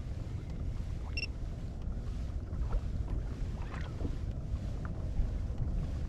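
Steady low rumble of light wind on the microphone over a kayak drifting on open water. A few faint small clicks and one very short high chirp come about a second in.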